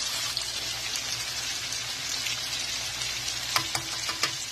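Smoked sausage and onions sizzling steadily in a frying pan, a continuous hiss of frying. Near the end come a few sharp clicks.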